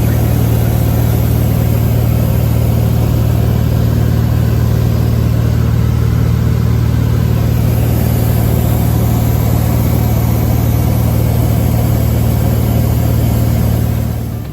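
Steady, loud drone of a small propeller airplane's engine in flight, heard from inside the cabin.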